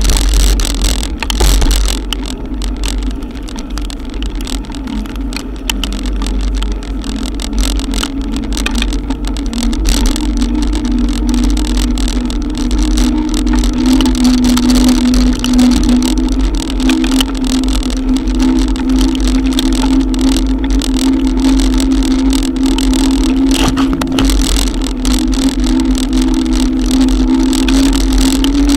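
Electric bike being ridden through heavy rain: a steady droning hum that edges up in pitch midway and then holds, over a low wind rumble on the microphone, with many fine ticks of raindrops striking the camera.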